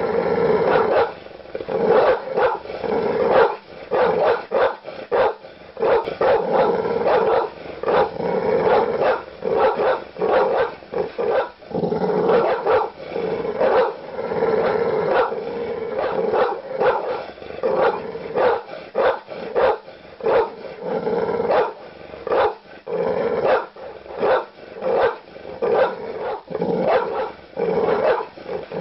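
Large dog barking aggressively in rapid runs of deep barks, several a second, with growling between them.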